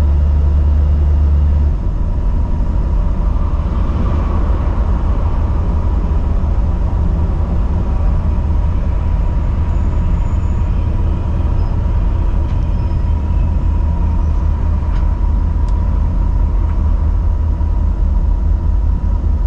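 GMC motorhome driving under load with a heavy trailer in tow, heard from inside the cab: a loud, steady engine and road rumble with a faint steady high whine.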